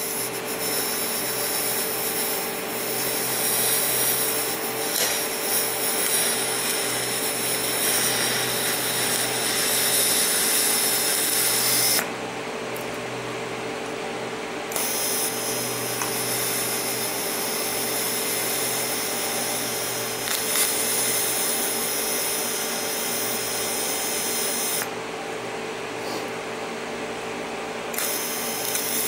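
Electric power tool working steel, with a steady motor hum under a harsh high hiss. The hiss stops twice for about three seconds while the hum carries on, as the work is lifted from the tool.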